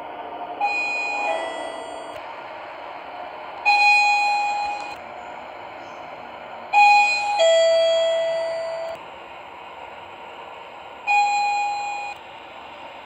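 Sigma elevator arrival chimes: an electronic two-note ding-dong falling from high to low, then a single ding, then another falling ding-dong and another single ding, each note fading over about a second. A steady background hum runs beneath.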